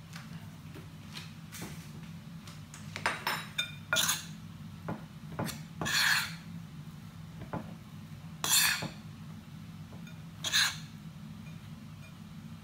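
Metal spoon stirring a flour, grated cheese and potato mixture in a bowl, scraping and clinking against the bowl in short bursts from about three seconds in. A low steady hum runs underneath.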